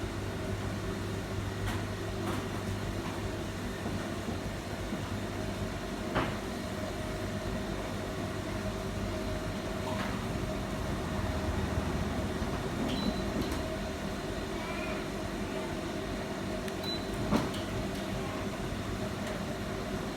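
Electric motor of a stainless-steel roller shutter door running steadily, with the rattle of the slats rolling. Two sharp knocks, about six seconds in and again near the end.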